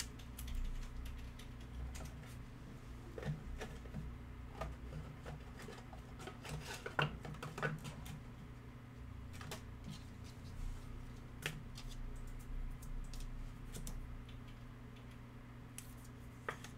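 A trading card being handled in plastic sleeves: scattered light clicks, taps and plastic rubbing as the card goes into a rigid top loader, the loudest clicks about halfway through, over a steady low hum.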